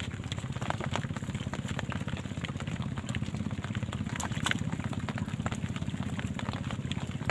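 Steady low drone of a running motor with a fast even pulse, with scattered light ticks over it.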